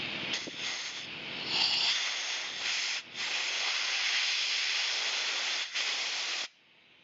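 Compressed air hissing from an air nozzle blown through the small idle jet of a Honda GX270 carburettor to clear passages closed off by stale fuel. It comes in several blasts with brief breaks and cuts off sharply near the end.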